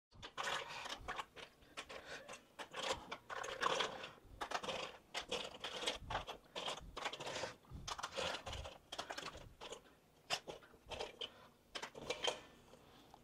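Mussel shells clicking and rattling against each other and a stainless steel bowl as they are scooped out by hand and dropped into a pot of tomato broth: an irregular run of many small clicks.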